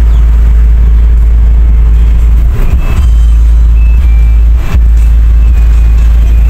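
Steady, loud low rumble of a moving car heard from inside the cabin, with road and engine noise and two short knocks as it goes over the road.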